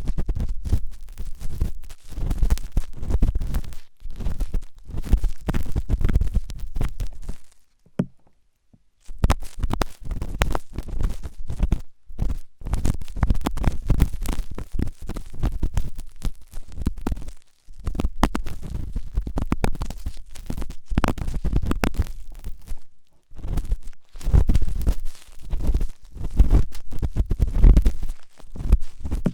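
Ear pick scraping and scratching hard in a microphone ear for ASMR ear cleaning, in quick, close, deep-sounding strokes, with a pause of about a second some eight seconds in.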